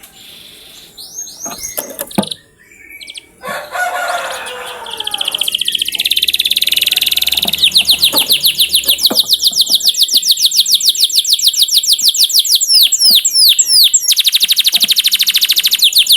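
Domestic canary singing: a few varied chirps and a low chattering phrase, then a long, loud, very rapid trill of repeated high notes, broken briefly by a few sweeping whistles near the end.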